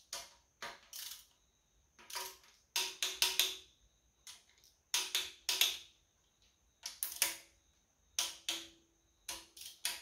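Tool Pro click-type ratchet torque wrench ratcheting on sump pan bolts, a series of short bursts of clicks every second or so, as the bolts are rechecked to 8 to 10 newton meters to squash the cork sump gasket evenly.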